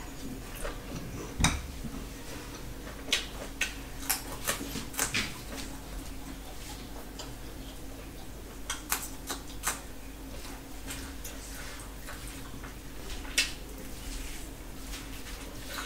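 Close-miked eating sounds of fried chicken and rice being eaten by hand: scattered sharp clicks and smacks from chewing, tearing the meat, and fingers on a steel plate, over a steady low hum.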